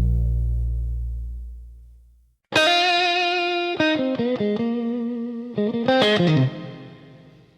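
Slow blues instrumental break. A deep low hit rings and dies away, then after a brief gap a solo electric guitar with distortion and effects plays a phrase of single notes. The phrase ends in a downward bend that fades out.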